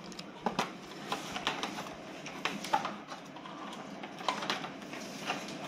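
Handling noise from a plastic-wrapped Hikvision indoor intercom monitor: irregular clicks, taps and rustles as it is turned in the hands and worked on against its wall bracket.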